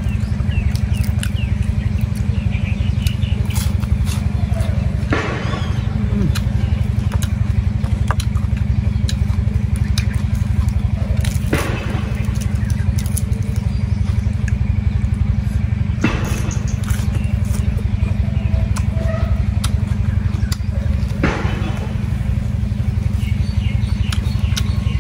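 A small engine running steadily with a low drone. Over it, a sharp crunch every five seconds or so as pieces of crisp fried pork bone and lettuce are bitten and chewed.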